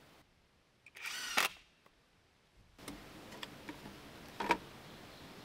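Cordless drill run in one short burst about a second in, its pitch rising as it drives a screw into a wooden batter board. A few light clicks and a short knock follow later.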